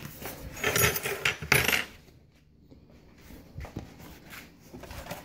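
Metal hand tools (wrenches and pliers) clinking and clattering against one another as they are shifted on a mat, in a burst of sharp clatters in the first two seconds, followed by a few soft knocks near the end.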